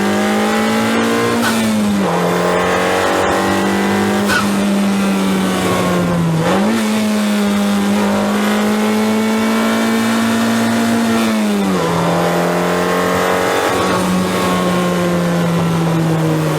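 Honda Civic Type R FK8's turbocharged 2.0-litre K20C1 four-cylinder pulling hard at high revs. The engine note climbs slowly and drops sharply at gear changes, about a second and a half in, around six seconds and near twelve seconds.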